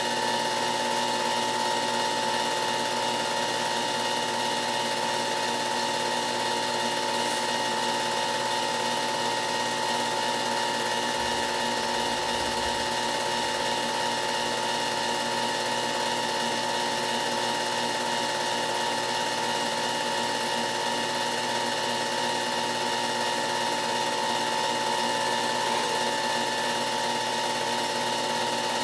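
Film projector running: a steady mechanical whir with several constant tones and no change in level, not the race cars' engines.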